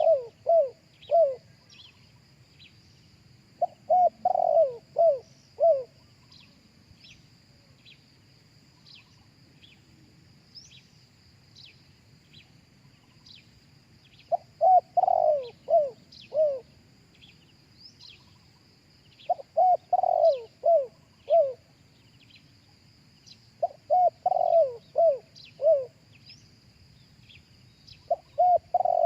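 Spotted dove cooing: repeated phrases of four or five deep, falling coos, with a pause of a few seconds between phrases. A faint steady high insect-like drone and small chirps carry on underneath.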